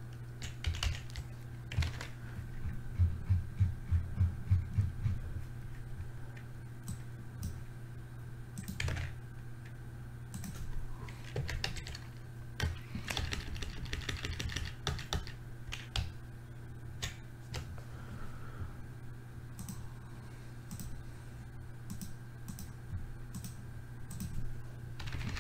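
Typing on a computer keyboard: irregular runs of keystrokes with pauses between, over a steady low hum.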